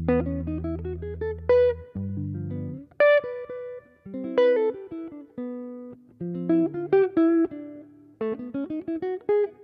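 Ibanez hollow-body archtop electric guitar playing a slow jazz ballad in chord-melody style: quick single-note melody phrases and a few sparse chords over low held bass notes.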